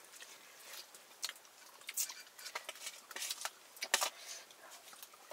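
Eating sounds: chewing and biting, with scattered small clicks and rustles and a couple of sharper clicks about two and four seconds in.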